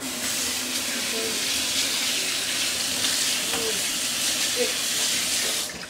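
Water running from a pull-down kitchen faucet into a stainless steel sink, a steady rush that comes on suddenly and is shut off just before the end.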